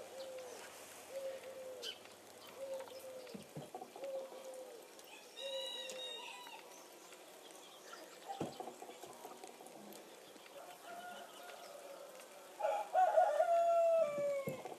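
Farmyard chickens: a steady series of short, falling clucks about one every three-quarters of a second, a few higher bird chirps about five seconds in, then a rooster crowing, the loudest sound, for about two seconds near the end.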